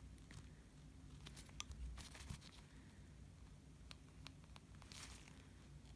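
Near silence: room tone with a low steady hum and a few faint ticks.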